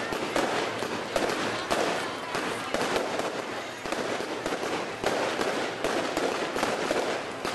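Fireworks going off in quick succession: a continuous crackle of many small bangs and pops with no pause.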